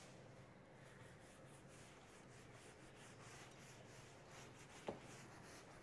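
Faint rubbing of a hand-held duster wiping marker off a whiteboard, with a single short click near the end.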